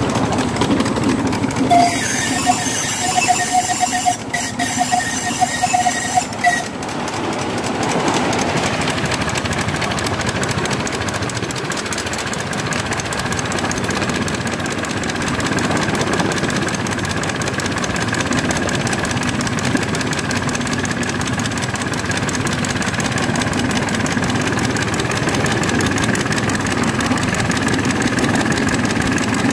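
Miniature steam locomotive on 7¼-inch gauge track, heard from the driver's seat, running steadily with wheel-on-rail noise. Its high whistle is blown for about four seconds near the start.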